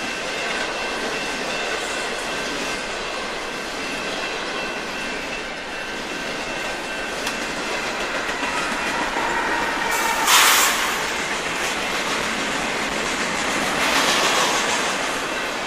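Canadian Pacific double-stack container freight train passing close by, its diesel locomotive going past and the cars' wheels running steadily on the rails, with faint high squealing tones in the first half. A brief loud rush of noise about ten seconds in, and a smaller swell a few seconds later.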